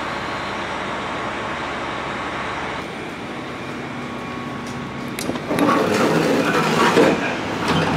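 Steady hum of a JR Hokkaido 733 series electric train standing at the platform; about five and a half seconds in, its push-button passenger door opens, louder, with several sharp clicks.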